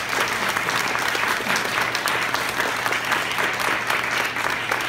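Audience applauding steadily, with one person's claps close by.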